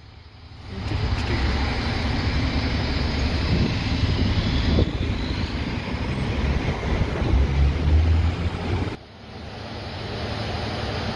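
Street traffic and running vehicle engines, a steady noisy rumble. It drops off suddenly about nine seconds in, then carries on quieter and steadier.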